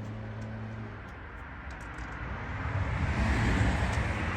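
Rushing noise of a passing vehicle that builds up over the last couple of seconds, over a low steady hum that drops away about a second in.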